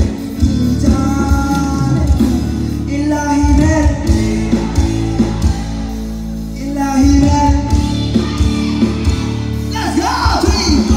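Live band playing loudly through a stage PA: a singer over drums and keyboard, the drum beat dropping away for a few seconds mid-way before coming back in.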